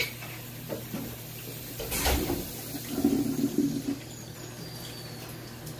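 Kitchen faucet water splashing into a stainless steel pot in a metal sink, with a rush of water about two seconds in and the pot clunking against the sink about a second later. A steady low hum runs underneath.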